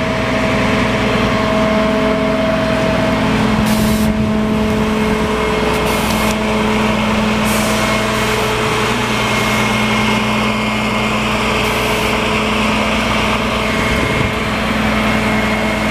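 Volvo FM9 refuse truck's nine-litre six-cylinder diesel engine running steadily, with a steady whine over it and a few short hisses of air.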